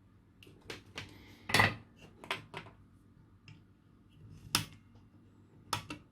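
Sharp clicks and light metallic clatter from small hand tools at a soldering bench, about eight short knocks in uneven succession, the loudest about one and a half seconds in.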